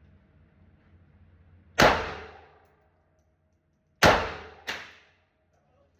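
Three .380 pistol shots: one about two seconds in, then two more in quick succession about 4 and 4.7 seconds in, each echoing away over about half a second.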